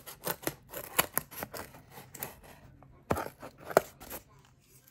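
Scissors snipping through corrugated cardboard: a quick run of short, crisp cuts, several a second, with a few louder snips about a second in and near the end.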